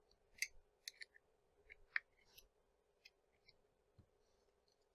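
Faint, irregular light clicks and clinks of a small metal workpiece and fixture-plate hardware being handled as the drilled part is unclamped and lifted out of the plate, the sharpest click about two seconds in.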